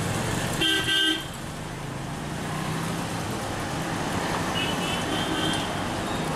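Street traffic running steadily, with a vehicle horn honking once briefly about half a second in, the loudest sound, and a fainter, higher horn toot around five seconds in.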